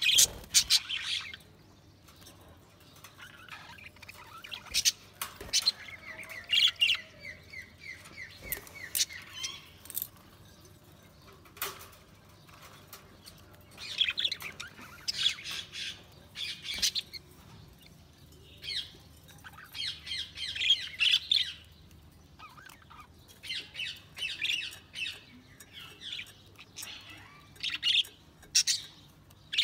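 Budgerigars chirping and chattering, with sharp squawks and clicks, in short bouts broken by brief pauses.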